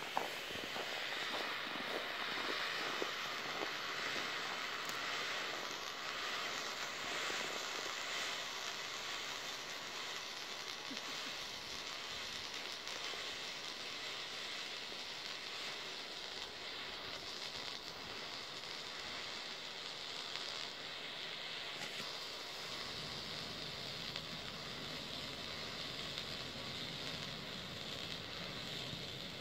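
Black smoke canister hissing steadily as it pours out smoke, with a sharp click right at the start.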